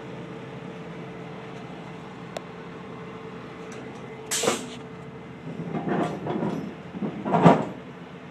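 John Deere 450J crawler dozer's diesel engine idling steadily. Over it come a sharp knock about four seconds in and a few louder knocking, scraping bursts near the end.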